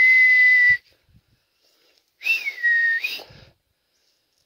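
A person whistling to call pets. A long, steady whistle ends just under a second in. A second, shorter whistle about two seconds in rises, falls, and turns sharply up at its end.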